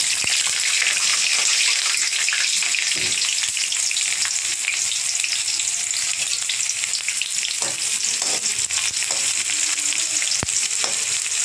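Sliced onions sizzling steadily in hot groundnut oil in an aluminium kadai, in the first stage of sautéing. Near the end they are stirred with a perforated spatula, with a few sharp clicks against the pan.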